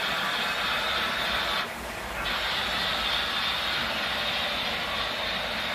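H0 model trains running on the layout: a steady rolling hum and hiss from wheels on the track and the locomotive motors, dipping briefly about two seconds in.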